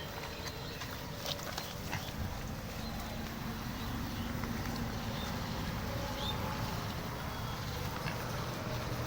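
Pigs grunting, with a few faint clicks and knocks.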